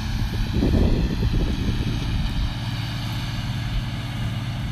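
Farm tractor engine running steadily at work, with a louder rough, rumbling stretch about half a second in that eases after a second or so.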